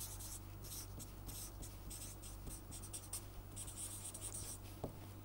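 Marker pen writing on paper: a run of faint, short scratchy strokes, with a steady low hum beneath.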